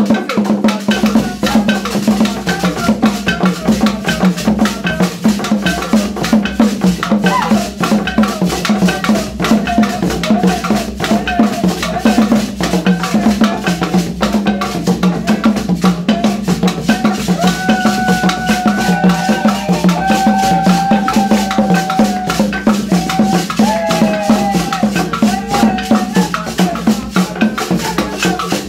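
Bend-skin dance music playing loud, drums and a rattling shaker keeping a fast, steady beat, with a few held melodic notes over it in the second half.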